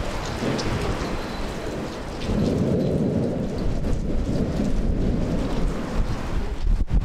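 Desert monsoon storm: strong wind buffeting the microphone, with a low rumble of thunder swelling from about two seconds in and fading a few seconds later.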